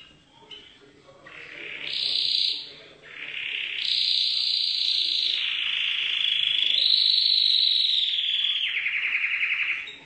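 Domestic canary singing a long run of rolled trills, each held at a steady high pitch for a second or two before switching to the next, ending in a lower, more visibly pulsed trill.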